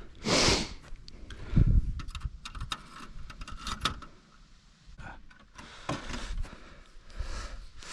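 Cordless drill and small metal parts being handled, with clicks and rattles and a few short spells of the drill running, as it drills out a rivet on a snowmobile's plastic rear bumper with a small bit.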